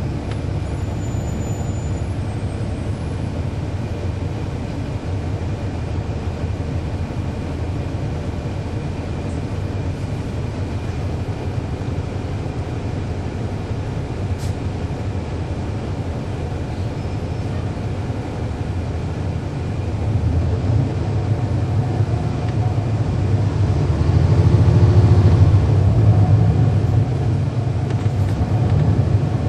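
Cummins ISL9 straight-six diesel engine of a NABI 40-foot transit bus, heard from on board, running with a steady low rumble. About two-thirds of the way through it grows louder and its note rises, as the engine revs under acceleration, then eases off near the end. The ZF Ecolife automatic transmission adds almost no whine of its own.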